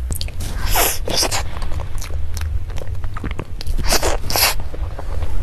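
Close-up mouth sounds of a person eating a matcha soy-milk cream cake: chewing with many small clicks, and two louder bursts about one and four seconds in.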